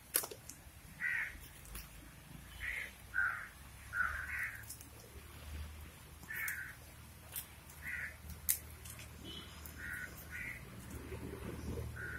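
A bird cawing in about ten short separate calls, with a few sharp crackles from a small fire of dry palm fronds.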